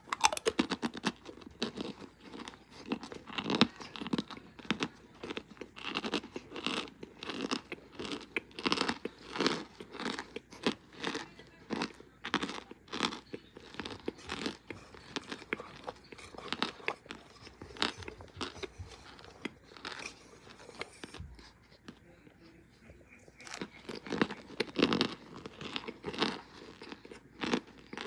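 Close-up crunching and chewing of hard, crunchy chunks of pure starch: many sharp crunches in quick succession, easing off for a moment about three-quarters of the way through before picking up again.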